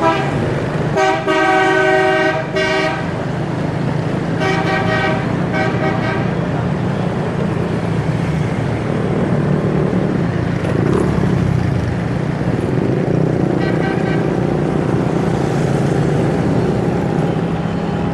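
Vehicle horns honking in street traffic: a long blast about a second in, two shorter toots around five and six seconds, and another short toot near fourteen seconds, over steady engine and road rumble.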